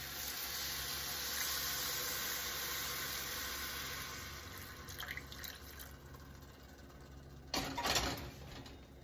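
Chicken stock poured from a saucepan into a hot stainless steel skillet of toasted rolled oats and mushrooms: a steady splashing hiss that fades out after about four seconds. Near the end comes a brief, louder clatter.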